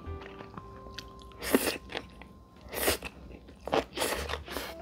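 Close-miked eating: noodles slurped, then food bitten and chewed, in several short noisy bursts about a second apart, the loudest about a second and a half in.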